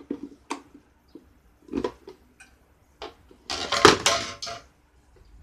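Plastic blender jar and base being handled and knocked: a few separate knocks in the first three seconds, then a louder run of clattering about three and a half seconds in.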